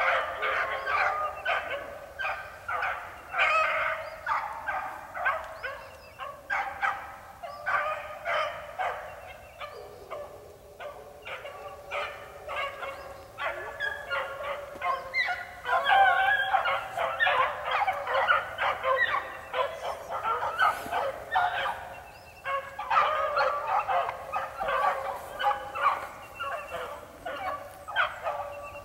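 A pack of young beagles baying on a rabbit's trail: many dogs giving tongue at once in a constant chorus of short, overlapping yelps and bawls that swells and fades.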